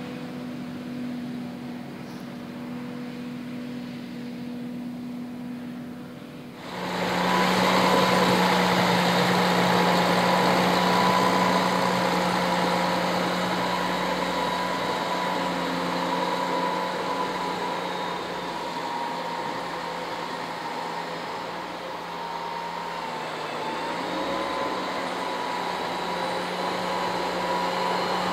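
John Deere 8600i self-propelled forage harvester running steadily as it chops crop into a trailer alongside. About seven seconds in, it cuts to a louder Prinoth Leitwolf tracked silage pusher, its engine running steadily as it pushes grass silage across a clamp.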